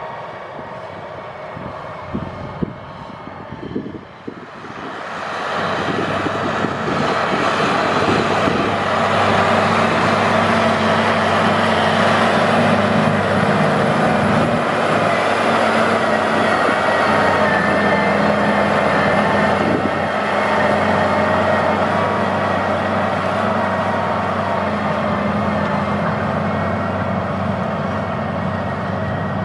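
The Cummins 855 cubic-inch six-cylinder diesel of a New Holland Versatile 9684 four-wheel-drive tractor, running under load while pulling a ripper. It grows louder about five seconds in and then holds a steady drone.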